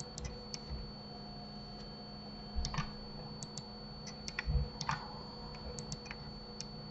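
Computer keyboard keys and mouse buttons clicking in short scattered runs, over a faint steady hum.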